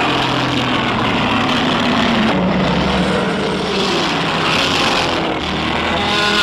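Godzilla Terrestris roar sound effect: one long, loud, grating monster roar that holds steady and begins to die away near the end.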